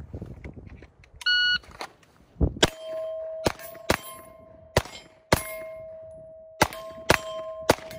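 A shot timer beeps once, then a pistol fires about nine shots at steel plate targets over roughly five seconds. Each hit sets the steel ringing with a clear, lingering tone.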